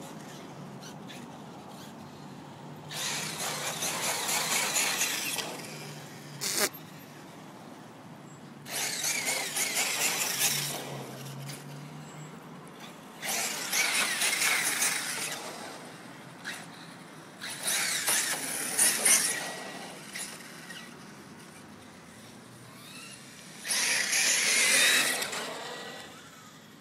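Castle Creations CM2200 brushless motor in an RC truggy, whining with its tyres hissing on tarmac in about five bursts of two to three seconds each, the pitch rising and falling as the truck accelerates and slows.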